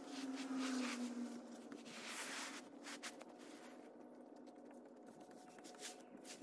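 A rake scraping and rustling over paving stones, pulling cut hedge leaves together in a few uneven strokes, the strongest about half a second and two seconds in. A faint steady hum runs underneath.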